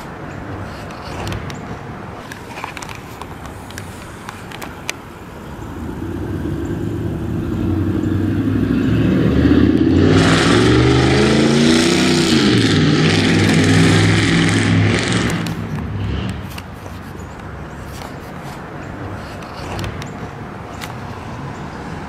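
A loud engine vehicle driving past: its engine grows louder over several seconds, drops in pitch as it goes by, then fades away, over a low hum of distant traffic.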